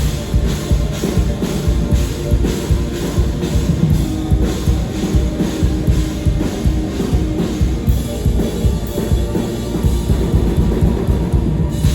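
Live rock band playing loud, with a steady driving drum beat at about three hits a second; the song cuts off abruptly near the end.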